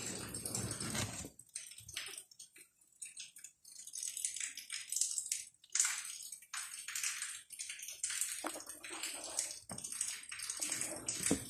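Irregular rustling and scuffling in uneven bursts, with a quieter stretch about two to four seconds in; no meowing.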